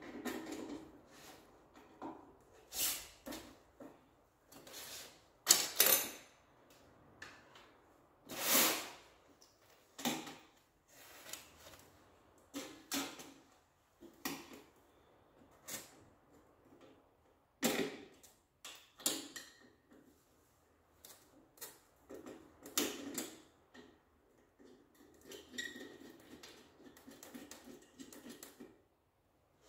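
Irregular clicks, knocks and rattles of parts and tools being handled during ceiling fan installation work, with the sharpest knocks in the first third.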